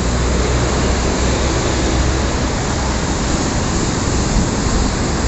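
Steady roar of rough sea surf breaking on a shingle beach, with a deep continuous rumble underneath.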